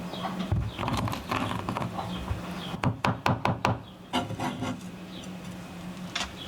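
A run of irregular knocks and clatter, with a quick series of four or five sharp knocks about three seconds in, and small birds chirping now and then.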